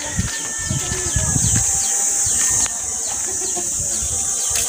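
Outdoor rural ambience: a steady high drone of insects with many short chirps falling in pitch, from birds, and low rumbling thuds during the first two seconds.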